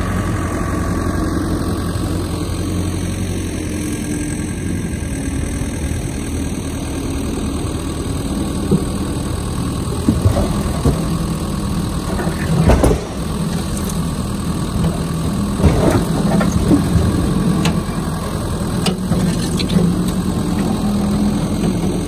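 Case skid steer engine running steadily as it brings up and tips its loaded bucket, with heavy oak firewood blocks knocking and thudding into a pickup truck's steel bed several times in the second half, the loudest thud a little past halfway through.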